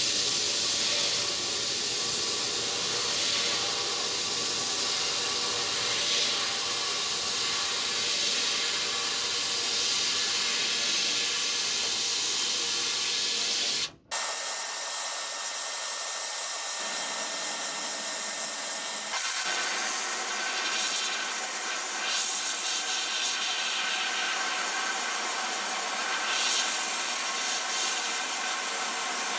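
Sandblasting in a blast cabinet: a steady hiss of compressed air and abrasive grit from the blast gun, striking the toy truck's sheet-metal cab and stripping its old paint and rust. It breaks off for an instant about halfway through, then carries on.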